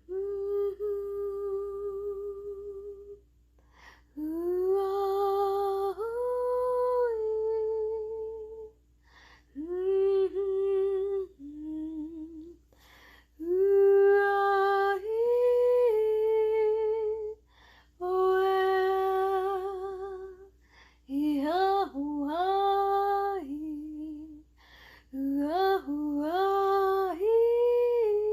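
A woman's voice singing a wordless, improvised vocal line: held vowel notes with vibrato in phrases of a few seconds, separated by short breaths, with some notes sliding up into the next. A faint steady tone sounds underneath.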